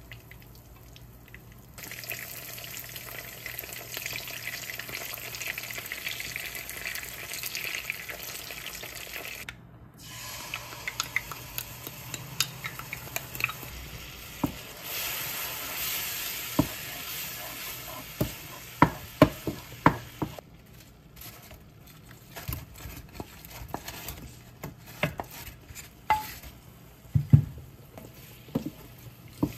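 Coated chicken pieces frying in hot oil in a frying pan, a steady sizzle that starts about two seconds in, then sauce sizzling in the pan. In the later part a spatula knocks and scrapes against the pan many times as the fried chicken is tossed in the sauce, over a fainter sizzle.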